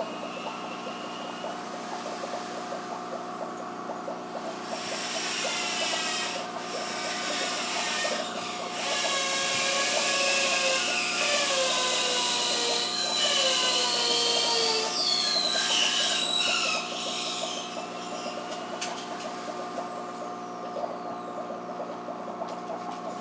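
Steady mechanical hum of an aquarium's filter or air pump, with several constant tones. From about five to seventeen seconds in, a louder, noisier stretch carries pitches that slide up and down over the hum.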